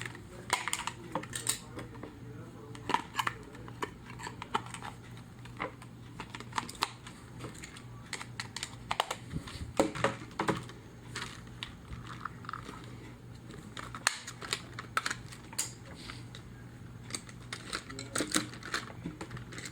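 Irregular small clicks, taps and rattles of batteries and plastic battery covers being handled and fitted into a toy radio-control truck and its transmitter.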